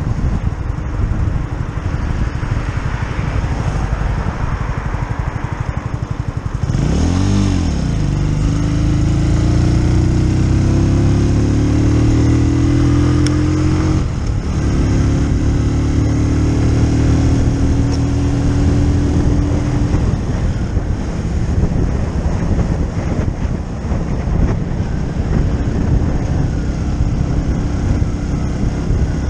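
Keeway Superlight 125 motorcycle's single-cylinder engine under way. Its pitch climbs as it accelerates, drops at a gear change about halfway, climbs again, then settles back under steady wind and road noise on the microphone.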